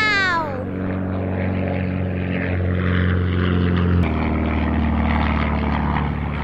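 Sound effect of a small propeller airplane's engine droning steadily as it flies, shifting in tone about four seconds in.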